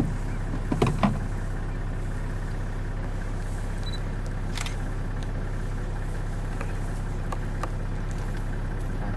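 Safari vehicle's engine idling steadily, with a few short clicks and knocks about a second in.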